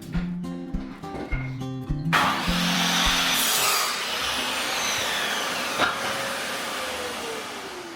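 Guitar music, then about two seconds in a loud electric motor starts suddenly with a rushing noise, its whine slowly falling in pitch toward the end.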